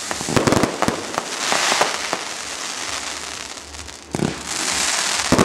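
Fireworks display: several sharp bangs of bursting shells, each followed by a spell of crackling noise. It eases off about three seconds in, then picks up again with more bangs near the end.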